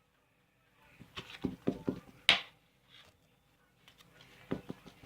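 Thick homemade toothpaste slime being stirred and worked in a bowl: a run of short wet clicks and squelches about a second in, and a few more near the end.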